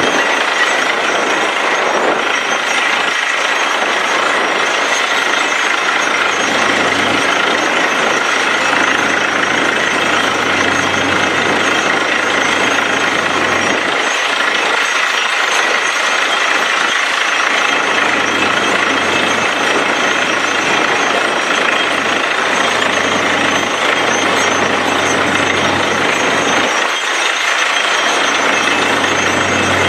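Truck-mounted borewell drilling rig drilling with compressed air: the steady, loud noise of the down-the-hole hammer, compressor and engine, with air blasting water and rock cuttings out of the bore.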